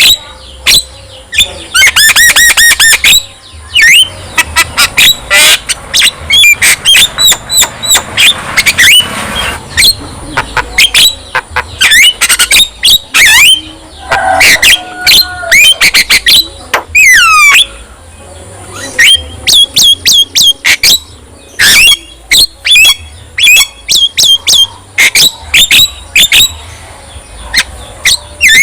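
Javan myna in full song: a fast string of loud, sharp whistles, gliding notes and harsh squawks, delivered in clusters with short pauses between them.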